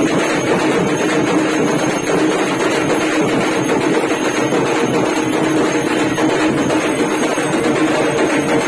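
Loud, dense festival music, with steady held notes over a constant noisy din.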